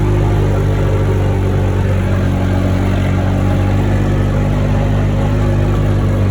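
ATV engine running steadily as the vehicle is driven, its pitch holding even.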